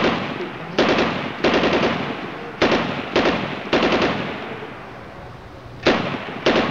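Cap gun firing repeated sharp shots: some single cracks and some quick rapid-fire strings of several shots, each trailing off in a ring. The last two shots come close together near the end.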